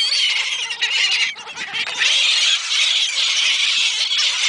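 A flock of seagulls calling all at once, a dense chorus of overlapping high cries that grows louder about halfway through.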